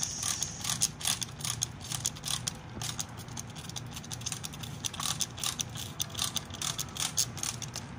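Hand spray bottle being pumped over and over to water the soil: rapid, irregular trigger clicks and spritzes, several a second, over a low steady hum.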